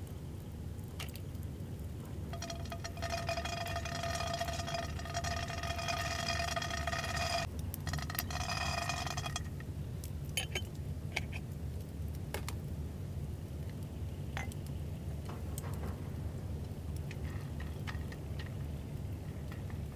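Wood campfire crackling under a frying pan of dry red beans being stirred with chopsticks, with scattered sharp clicks, over a low steady rumble. A steady pitched hum with overtones sounds from about two seconds in until about nine seconds in.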